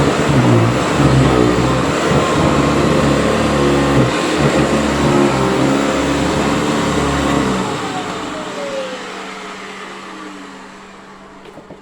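Hoover Decade 80 upright vacuum cleaner running with a low rumble, then switched off about seven and a half seconds in. Its motor winds down, the whine falling steadily in pitch as the sound fades.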